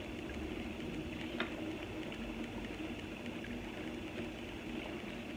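Steady low background hum and hiss, with one faint click about a second and a half in.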